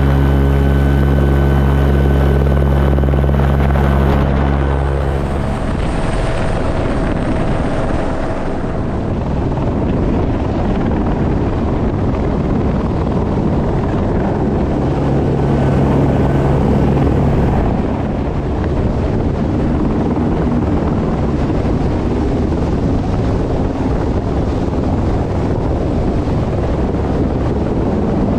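Helicopter hovering close overhead. For the first five seconds or so its rotor gives a steady low thrum. Then a rough rushing noise of rotor downwash and wind on the microphone takes over as the camera is lowered on the rescue hoist, with the low rotor tone showing through again briefly about halfway.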